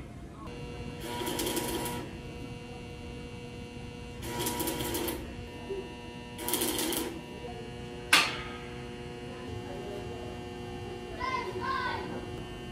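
Arc welder laying short tack welds on a steel tube frame: three crackling bursts of about a second each, over a steady electrical hum. A single sharp metal knock comes about eight seconds in.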